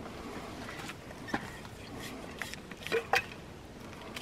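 A water bottle being handled: a few light clicks and knocks, the loudest two close together about three seconds in.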